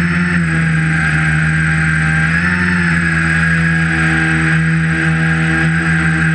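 A tricopter's electric motors spinning 11-inch propellers in flight, a steady multi-tone drone with a high whine above it, its pitch rising and falling as the throttle changes, with a rise about two and a half seconds in.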